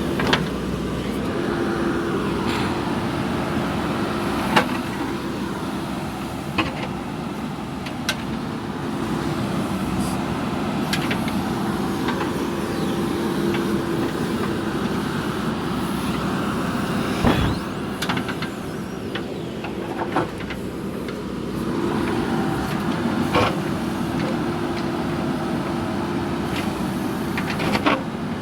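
JCB backhoe loader's diesel engine running steadily as the machine works, with a steady hum that comes and goes in long stretches. There are scattered sharp knocks, about one every few seconds.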